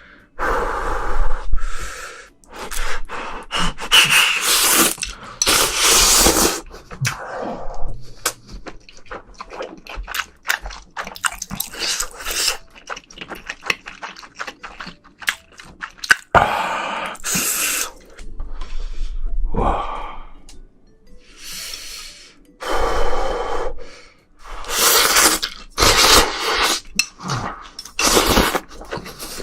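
Close-miked eating sounds of a person eating shrimp: irregular bursts of chewing with many small wet mouth clicks, broken by short pauses.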